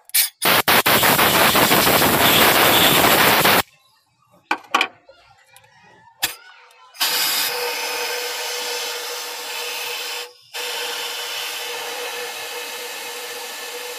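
A loud hiss of compressed air from an air blow gun, starting with a few short blasts and then held for about three seconds. It is followed by a few light clicks, then from about seven seconds in a steady machine hum with a constant whirring note, briefly cut near the end.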